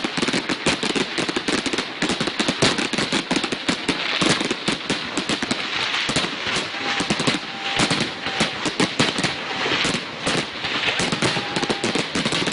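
Fireworks finale barrage: a rapid, unbroken stream of bangs and crackling pops with no pauses between them.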